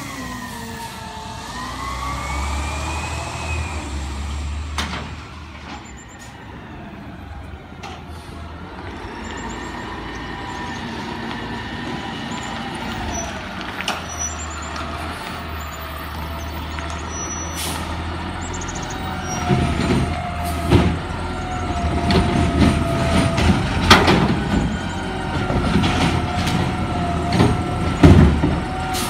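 CNG-powered Peterbilt 320 garbage truck with a McNeilus ZR automated side-loader, its engine and hydraulic whine rising and falling, then holding steady. From about two-thirds of the way through come many loud clanks and bangs as the arm handles a recycling cart and dumps it into the hopper.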